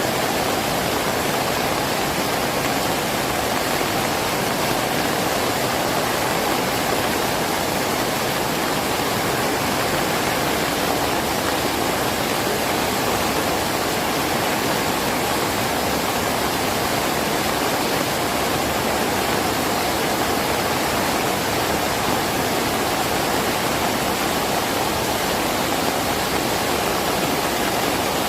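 Heavy rain falling steadily, an even hiss with no breaks or gusts.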